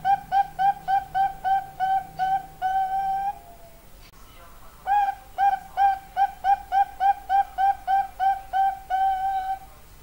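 Zebra dove (perkutut) singing: a run of short, clear cooing notes about three a second, ending in a longer held note, then after a pause of about a second and a half a second phrase that goes the same way.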